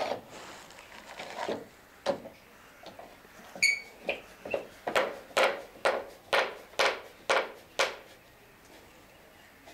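One-handed quick-release bar clamps being worked on a boat plank: a few scattered knocks and a brief metallic ping, then a regular run of about seven sharp clicks, about two a second, as a clamp's trigger is pumped to tighten it.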